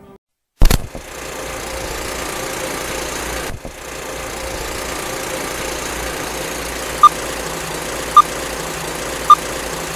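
Intro sound effect: a single sharp clack, then a steady mechanical whirring like a running film reel, with three short countdown beeps about a second apart near the end.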